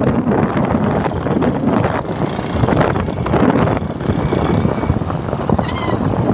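A vehicle driving along a rough dirt track, with its running noise and heavy wind buffeting on the microphone. A few short high chirps come in near the end.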